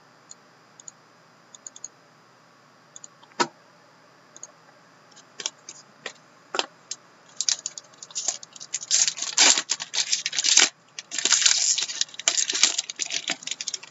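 Plastic wrapping crinkling and tearing as a sealed hockey card box is unwrapped, a dense crackling from about seven seconds in. Before it there are a few light clicks and a single knock.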